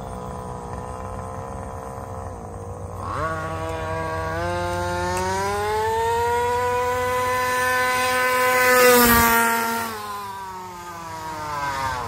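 Small two-stroke gas engine of a 30cc Baja 5T RC truck, running low at first, then revving up sharply about three seconds in and holding a high, slowly rising pitch under throttle before backing off near ten seconds and picking up again at the end. A brief rush of noise with a knock comes near nine seconds, at the loudest point.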